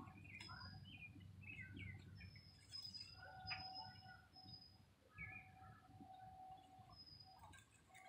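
Faint songbirds calling: many short chirps and a few held whistled notes, over a low steady background rumble.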